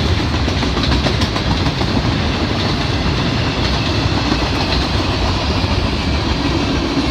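Freight cars of a mixed freight train rolling past: a steady rumble of steel wheels on rail with faint scattered clicks.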